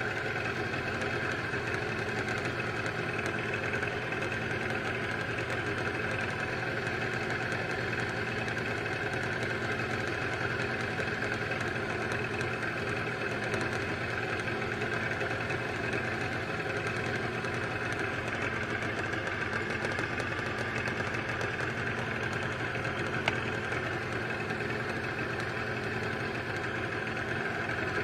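Boat motor running steadily at low trolling speed, with one sharp click near the end.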